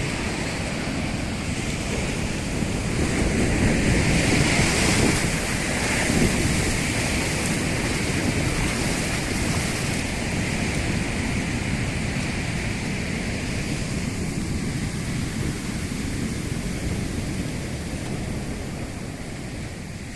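Rough sea surf breaking on a beach, with wind noise on the microphone. The surf swells about four to six seconds in, then slowly eases off.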